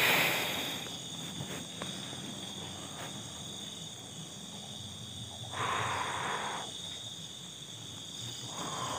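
Night crickets chirping steadily, with a brief rustling noise at the start and another about six seconds in.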